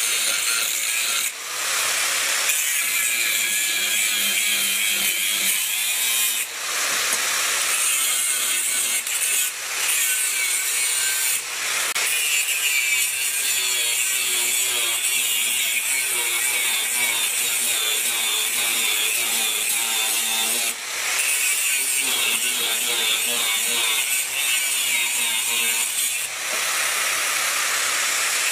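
Angle grinder grinding the steel of a spanner, a loud steady grinding hiss broken by several brief dips.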